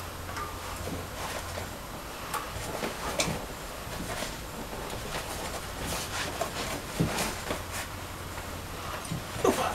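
Crankshaft of a four-cylinder 4ChSP8.5/11 marine diesel being turned over by hand with its freshly fitted valve gear, giving scattered light metallic clicks and knocks from the pushrods, rockers and valves. The engine is being turned to check that every valve opens and every pushrod sits in its tappet.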